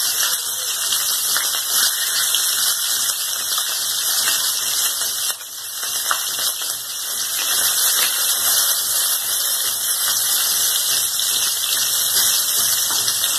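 Green chillies and fenugreek seeds sizzling in hot oil in a kadhai, a steady hiss with a brief dip about five seconds in.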